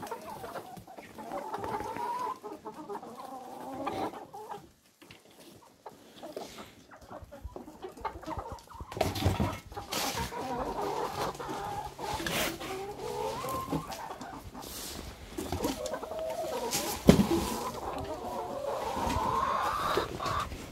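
Flock of 25-week-old brown pullets clucking continuously. A few scuffs and clicks are mixed in, and one sharp knock about seventeen seconds in is the loudest sound.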